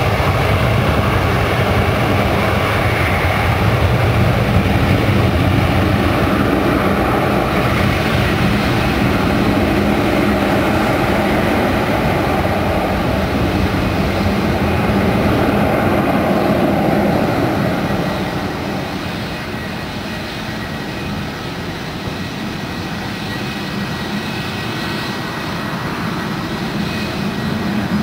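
Four-engine Ilyushin Il-76 jet transport's turbofans at takeoff power during its takeoff roll: a loud, steady jet roar with a faint whine through it. The roar is loudest as the aircraft passes, falls off about two-thirds of the way through as it rolls away, then swells slightly again as it lifts its nose to take off.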